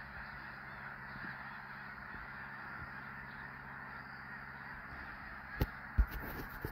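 A huge flock of snow geese calling overhead, a dense unbroken chorus of honking. A couple of sharp thumps near the end.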